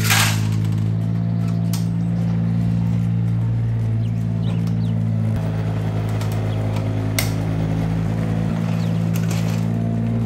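A steady low engine-like drone that shifts slightly about halfway through. A few sharp clicks come from a hard plastic toy tractor loader and plastic gravel being handled.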